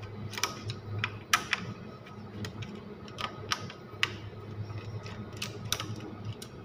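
Irregular sharp clicks and light knocks of plastic miniature circuit breakers being handled and pried loose from a panel, over a steady low hum.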